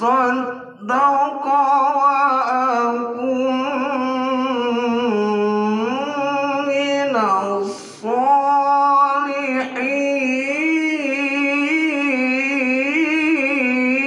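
A single man's voice through a microphone chanting an Arabic religious recitation, drawing out long ornamented notes that waver up and down, with short breaths about a second in and again about eight seconds in.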